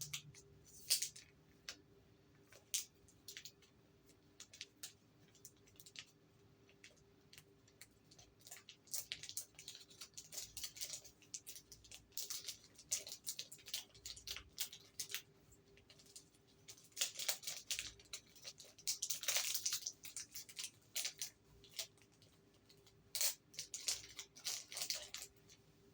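Handling noises of coins and their packaging being unboxed: scattered sharp clicks and short bursts of crinkling and rustling, busiest in the middle and again near the end.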